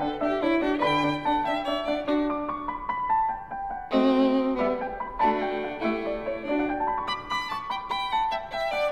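Instrumental background music led by a violin, its notes held with vibrato; a new, louder phrase begins about four seconds in.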